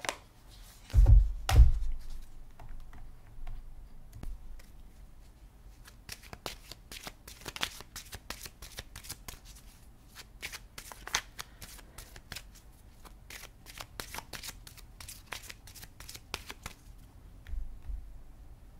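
A deck of tarot cards being shuffled by hand: a long run of crisp, rapid card clicks, with two low thumps about a second in and a couple more near the end.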